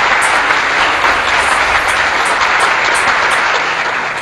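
A loud, steady rushing noise, like applause or static, that fades out near the end.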